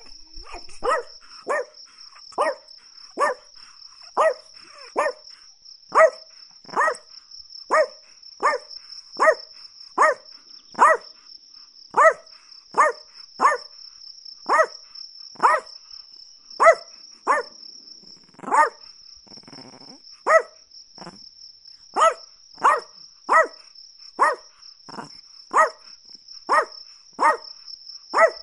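Chihuahua barking: a long run of short, high-pitched yaps, roughly one and a half a second with a couple of brief pauses, over a steady high-pitched drone.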